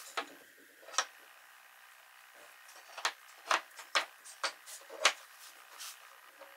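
Sawn hardwood cutting-board strips being handled and set down on a workbench, knocking against each other and the tabletop: two single knocks in the first second, then a quick run of about six knocks between three and five seconds in.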